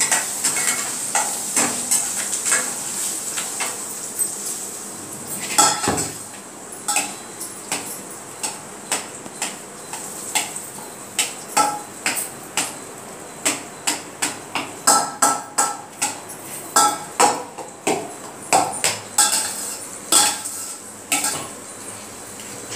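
A metal spoon clinking and scraping against a steel cooking vessel while food is stirred and mixed. The short clinks are irregular, at times about two a second.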